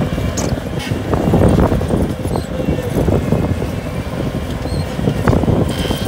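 Bobcat compact track loader's diesel engine running under load as it pushes loose dirt with its bucket, with scattered knocks and rattles over a steady rumble.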